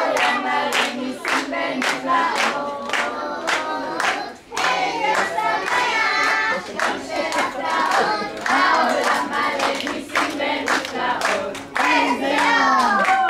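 A group of children and adults singing together while clapping their hands in a steady rhythm.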